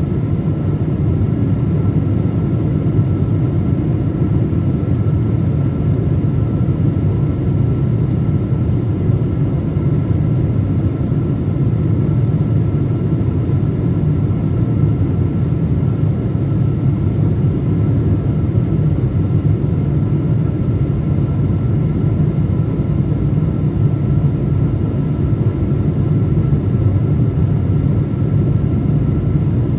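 Cabin noise of a Boeing 777-200 descending on approach, heard from a window seat over the wing: a steady low rumble of airflow and jet engines, with a faint steady whine above it.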